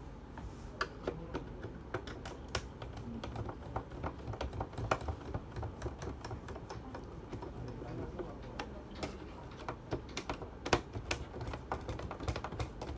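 Screwdriver working small screws out of a Birch Q3 thermal printer: scattered light clicks and taps at irregular spacing as the tool and screws knock against the printer's parts.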